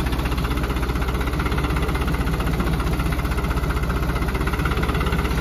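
New Holland 3630 tractor's diesel engine running steadily, its firing pulses heard as a fast, even beat.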